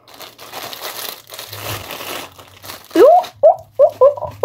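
Clear plastic packaging bag crinkling and rustling as it is pulled open and off a phone tripod stand. About three seconds in, a run of short wordless vocal sounds from the person unwrapping it, louder than the crinkling.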